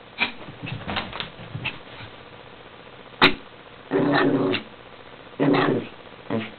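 Small chihuahua barking in play: one sharp bark about three seconds in, then two longer barks about a second and a half apart, and a short one near the end. Light clicks and scuffles come before the barks.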